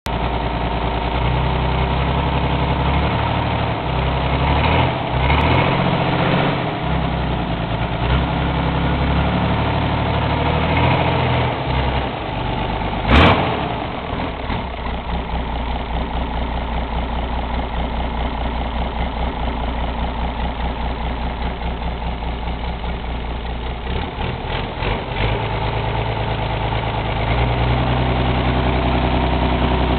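Volvo Penta AQAD41A six-cylinder turbo-diesel marine engine running on a test stand, mostly at idle, its note shifting a few times as the engine speed changes. A single sharp knock comes about halfway through.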